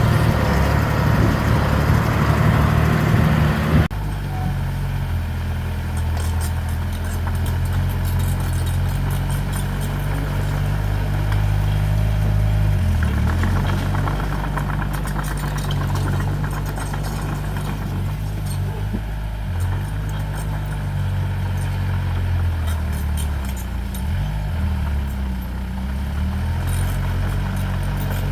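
Diesel engine of heavy earthmoving equipment running steadily, with a sudden change in the sound about four seconds in and the engine note dipping briefly a couple of times as it takes load.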